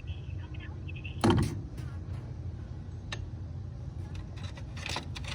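Handling of a payphone handset: a loud clunk about a second in, then a sharp click and a few lighter knocks, over a steady low rumble.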